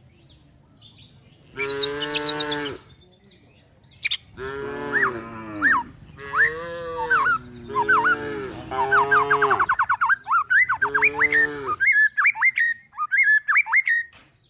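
Cattle mooing repeatedly: about six drawn-out calls of a second or so each, some overlapping. Birds chirp over them, and the chirping alone carries on near the end.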